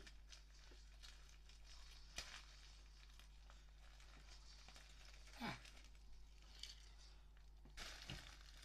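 Faint rustling and tearing of a mail package being opened by hand, with a few soft clicks and a brief louder rip near the end.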